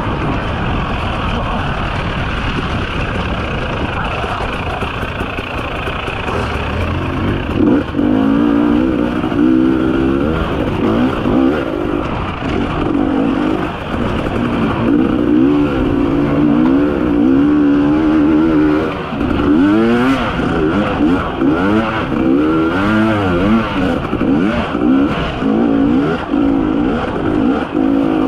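A 300cc two-stroke enduro motorcycle ridden along a trail, heard close from the rider's own bike. The engine revs rise and fall over and over as the throttle is worked, and it runs harder and louder from about a quarter of the way in.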